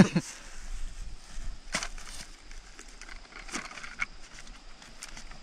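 Soft rustling in grass with a few light clicks and taps as a plastic tub of dry deer attractant is handled and tipped out onto the ground.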